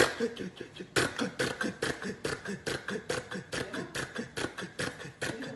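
Vocal imitation of a two-cylinder tractor engine running: a steady mouth-made putt-putt of about four beats a second, with louder bursts at the start and about a second in.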